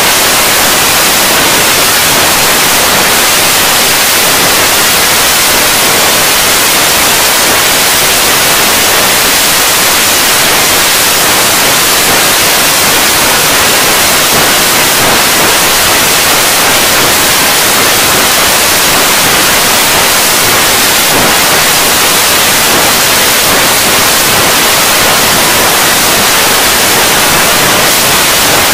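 Loud, even static hiss with no music or voice audible in it, cutting in suddenly.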